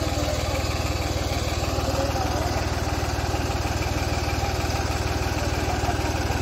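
Diesel farm tractor engine idling steadily, with an even, rapid low exhaust pulse.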